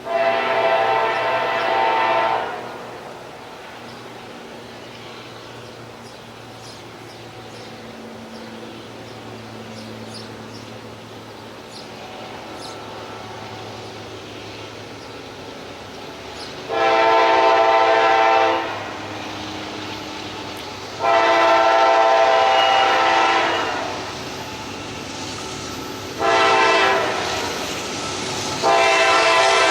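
Freight locomotive air horn on eastbound CSX Q388 sounding a multi-note chord. One blast about 2.5 s long comes at the start. After a pause with the locomotives' engines rumbling low, it plays long, long, short, long near the end, the standard grade-crossing signal.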